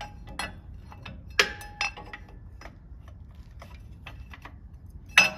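Steel flip-kit bracket clinking and clanking against the truck's rear axle and leaf spring as it is slid into place and lined up with the spring's locating button. The knocks are scattered and some ring briefly, with a sharp clank about a second and a half in and another near the end.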